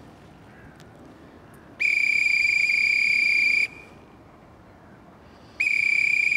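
A dog whistle blown in two long, steady, single-pitched blasts of about two seconds each, the second starting near the end: a recall signal to the dog.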